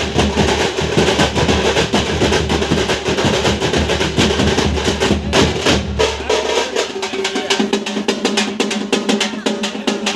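A folk drum troupe playing fast, dense drumming, with many quick strokes. The deep bass drops out about six and a half seconds in, leaving the higher drums.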